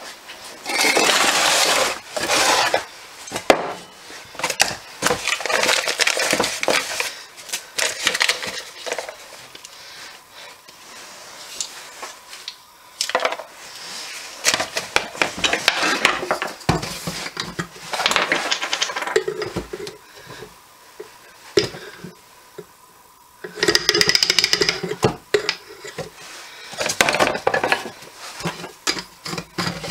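Close handling noise of plastic and metal objects being picked up and set down. Irregular clattering and rustling with many sharp knocks, loudest about a second in and again near the end.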